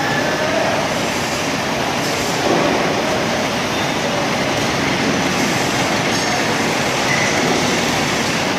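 A powered coil-handling trolley carrying a heavy steel coil, moving slowly on its wheels with a steady loud mechanical running noise.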